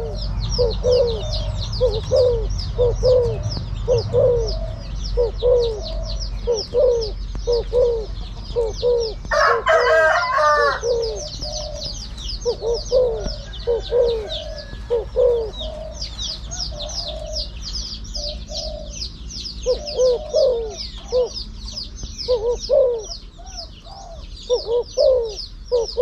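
Spotted doves cooing: a long run of short, low coos, about two a second, with a short lull in the second half. A rooster crows once about ten seconds in, and high chirping goes on behind.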